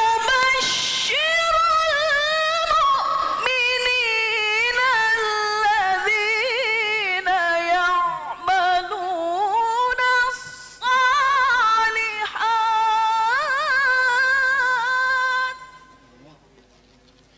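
Melodic Qur'an recitation (tilawah): a single reciter's high voice holding long, ornamented phrases that bend up and down through the notes, with short breath pauses. The last phrase ends about 15 seconds in and fades away.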